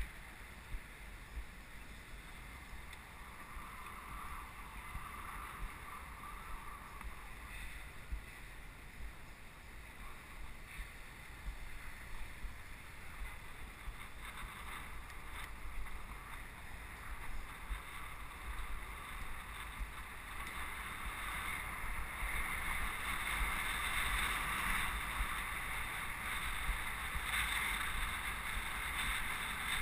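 Wind rushing over a bike-mounted camera's microphone during a city bicycle ride, with a low rumble underneath; the hiss grows louder over the second half.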